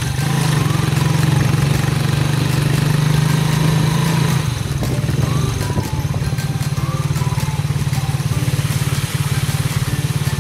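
Motorcycle engine of a tricycle running steadily under way. The engine note eases about four and a half seconds in and carries on a little lower.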